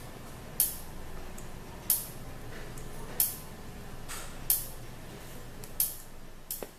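Electric fence energizer pulsing: a sharp, high-pitched click about every 1.3 seconds, five times, over a faint steady hum.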